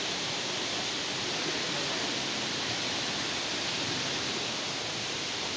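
Indoor waterfall feature in a glasshouse, its falling water giving a steady, even rush.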